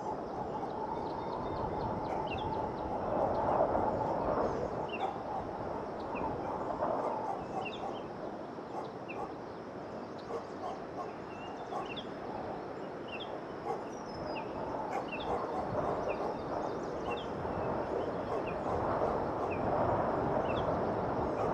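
Outdoor field ambience: a steady noisy hum with many short, scattered bird chirps over it.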